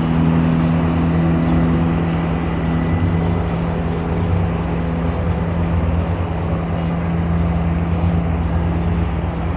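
An engine running steadily: a constant low hum under a broad rushing noise.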